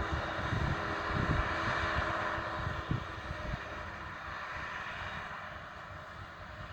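Distant silage harvesting machinery, a forage harvester and tractors, running with a steady drone that eases a little after about three seconds. Wind buffets the microphone with low rumbling gusts.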